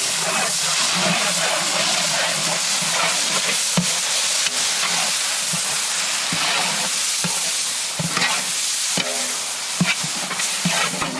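Onions and ground chilli paste frying in oil in a large biryani pot: a steady sizzle, with a ladle knocking and scraping against the pot now and then as the masala is stirred.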